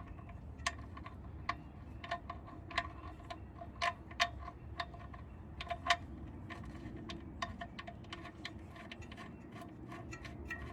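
Light metallic clicks and taps at an uneven pace, each with a short ring, as a steel oil drain bolt with a new crush washer is threaded back into the oil pan by hand.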